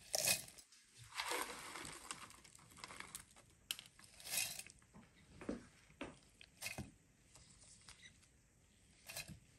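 Crisp fried onions dropped by the handful into a stainless steel mixer-grinder jar, rustling and crackling as they fall, followed by several short knocks as tomato pieces land in the jar.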